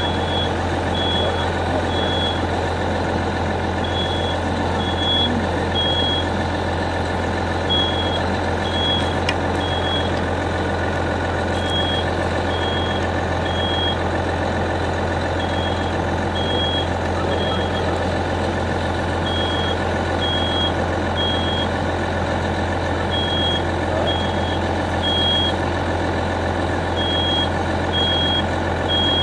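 Smoke alarm sounding in the standard three-beep pattern: three short high beeps, a pause, then again about every four seconds, signalling smoke in the room. Under it runs a steady low engine drone.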